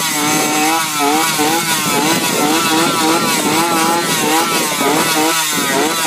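A dense chorus of animals squealing, many overlapping high calls rising and falling in pitch without a break, over a steady background noise.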